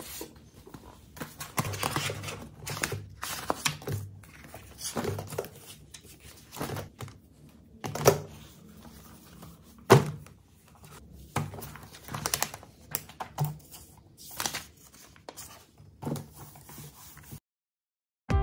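Handling at a desk: paper and a booklet rustling, with short knocks of things being set down on the desktop, two of them sharp and loud about eight and ten seconds in. The sound cuts off abruptly near the end.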